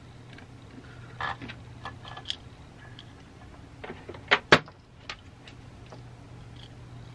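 Handling noises from the power supply's parts: scattered light clicks and knocks of metal and plastic, with two sharp clicks a bit over four seconds in, over a steady low hum.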